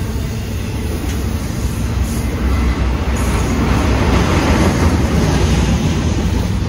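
Train running through the station: a loud, continuous rumble of wheels on rail that swells to its loudest around four to five seconds in.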